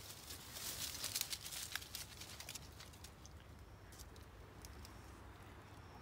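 Dry leaves and twigs crackling and rustling underfoot, dense in the first couple of seconds, then sparser and fainter.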